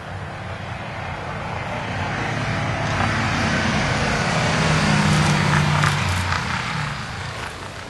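A motor vehicle drives past on a road, its engine and tyre noise growing louder to a peak about five seconds in, then fading away.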